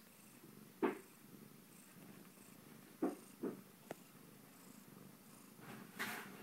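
A cat purring steadily, with a few short soft sounds breaking in: one about a second in, a cluster between three and four seconds in, and one near the end.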